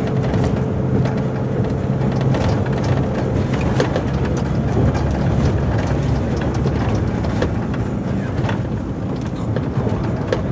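Volvo FH 440 truck's 13-litre six-cylinder diesel running steadily under way, heard from inside the cab as a low drone. Scattered short clicks and rattles sound over it throughout.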